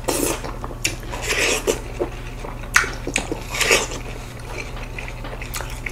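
Biting into and chewing slices of seedless watermelon: a string of short, separate bite and chewing sounds, over a steady low hum.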